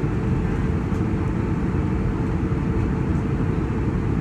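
Airliner cabin noise: a steady low rumble with no breaks.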